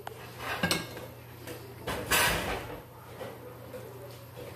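Kitchen handling noise: two short scraping, clattering sounds, the louder about two seconds in, over a steady low hum.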